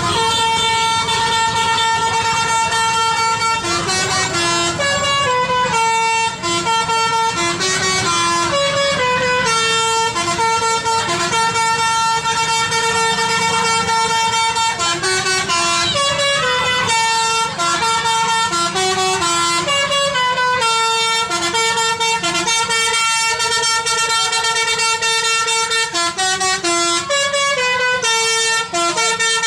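Bus "telolet" musical air horn playing a tune: sustained horn notes stepping up and down in pitch, with the melody repeating over and over.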